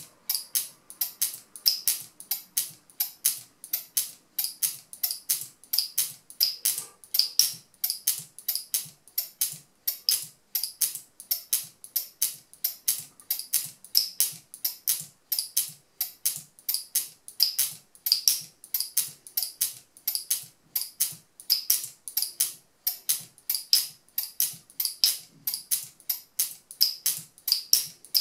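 Turquaz speargun camera mount's locking mechanism being snapped shut and released over and over in a durability test: an even run of sharp clicks, about three a second.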